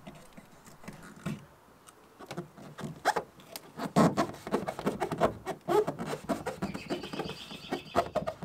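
A hand pressing and rubbing a glued vinyl patch onto the inside of a canoe hull, giving irregular taps, knocks and rubbing scuffs against the hull.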